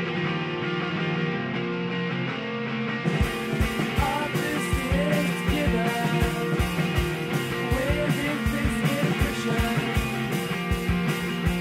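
Background music with held guitar chords; a drum beat comes in about three seconds in and keeps a steady beat from then on.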